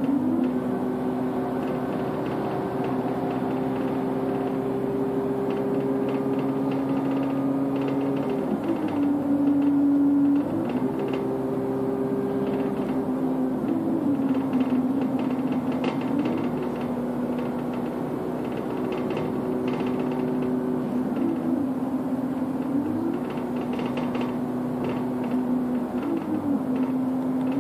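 Bus engine and drivetrain heard from on board while driving. A steady whine rises to a higher pitch, holds, and falls back again four times.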